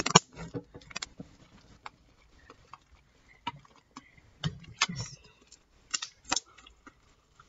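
Slime being squeezed and kneaded by hand, giving irregular wet clicks and pops.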